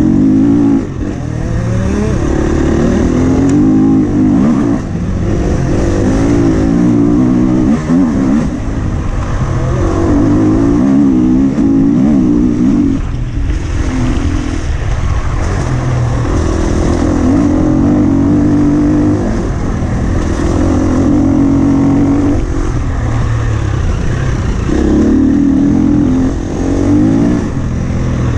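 2017 Husqvarna FE 250's single-cylinder four-stroke engine being ridden hard off-road. The revs surge up and fall back every couple of seconds, with the throttle briefly closed between surges.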